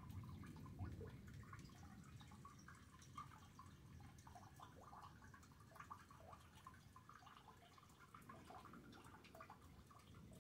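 Faint rainwater dripping during a thunderstorm: many small scattered drips ticking irregularly over a low, steady background noise.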